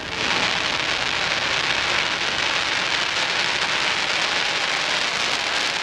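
Crackling stars of a firework shell: a dense, steady crackle that starts just after the burst and holds for several seconds.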